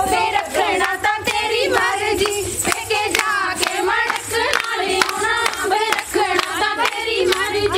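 Group of women singing Punjabi boliyan together, with steady hand clapping keeping the beat of the giddha.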